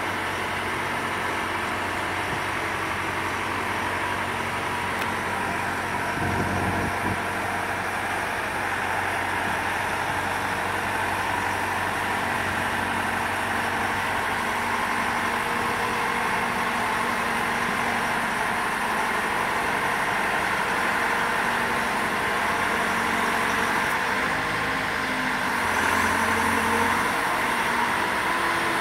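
Engine of a mobile boat hoist (travel lift) running steadily as it drives along carrying a fishing boat in its slings. There is a short low thump about six seconds in, and the engine note grows stronger for a moment near the end.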